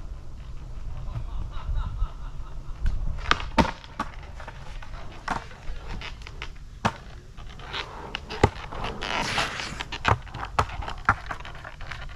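Skateboard rolling on pavement on soft 56 mm 87A wheels, a steady low rumble. Several sharp clacks of the board striking the ground are heard, and there is a brief hissing scrape about nine seconds in.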